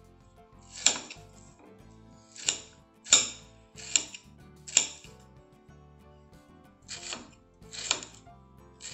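A knife chopping Ouro Branco bonbons, white-chocolate-coated wafer bonbons, on a plate: about eight separate cuts at uneven intervals, each a short sharp crack as the blade breaks through the chocolate shell and hits the plate. Soft background music runs underneath.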